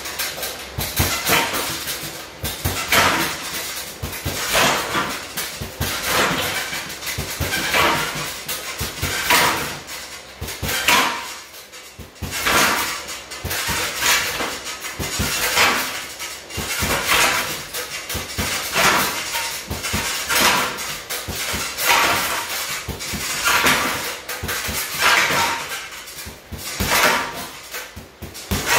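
Punches landing on a hanging heavy punching bag in quick combinations: dense knocks and rattling that come in swells every second or two, with a short pause about eleven seconds in.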